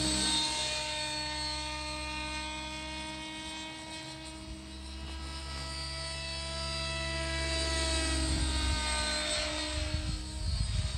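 Thunder Tiger Raptor E700 electric RC helicopter in flight: a steady whine from the motor and drivetrain with rotor noise, its pitch held even by the Spirit governor. The level fades a little around the middle and swells again later as the helicopter moves. Rough rumbling noise comes in near the end.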